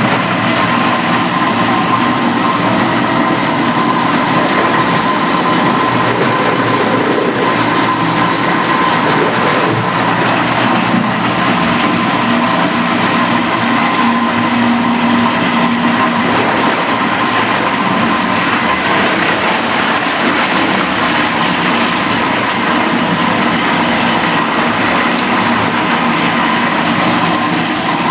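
Loud, steady industrial machinery running without a break in a plastic recycling plant: a dense mechanical din with a constant high hum through it.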